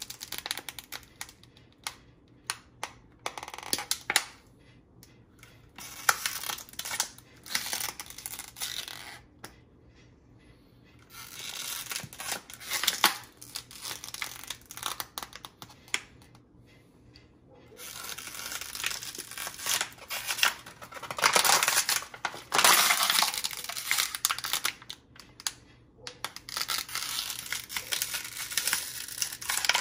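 Thin plastic water bottle crinkling and crackling as it is squeezed and released again and again, used to suck egg yolks out of the whites. The crinkling comes on and off in clusters with short quiet spells between.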